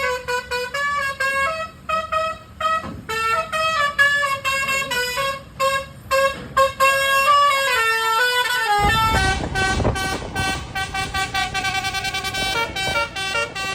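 A truck's musical horn playing a quick tune of short, stepped notes. About nine seconds in, a low vehicle noise joins under the continuing notes.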